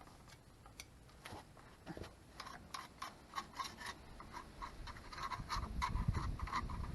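Quick, repeated scrubbing strokes, several a second, while a brake drum is being cleaned by hand. The strokes start a couple of seconds in and grow louder near the end.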